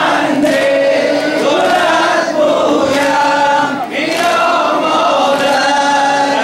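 A group of men chanting a noha, a Shia Muharram lament, in unison through microphones and a PA, with long held, sliding notes.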